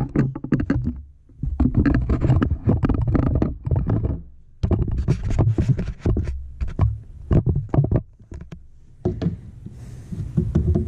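Tongue-and-groove pliers clamping and working a Jeep Wrangler YJ wiper linkage socket onto its ball stud through the cowl opening. Irregular clicks, knocks and scraping of metal on metal and plastic come in several spells, with a low rumble of handling underneath.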